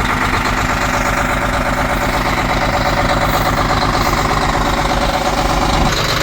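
1995 International cab-over semi's 11.1-litre Detroit Diesel Series 60 inline-six idling cold, steady and loud, with a slight shift in its note near the end.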